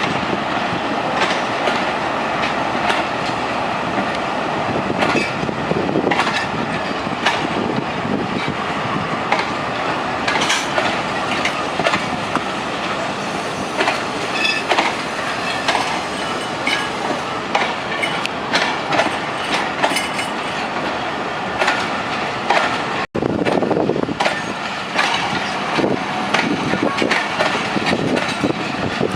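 Passenger train coaches rolling along the track, with a steady rumble and frequent clicks of the wheels over the rail joints. The sound cuts out for an instant about three-quarters of the way through.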